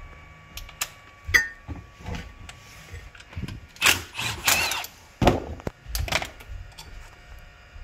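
Scattered metallic clicks, knocks and scrapes of hand tools and brake hardware being worked on at a car's front wheel hub, loudest in a cluster of scraping clanks around the middle.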